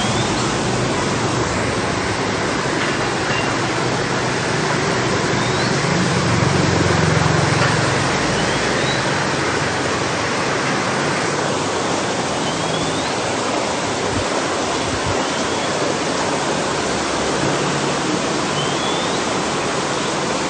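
Steady rushing and splashing of circulating water in a reef aquarium, with a low hum underneath that swells briefly about six seconds in.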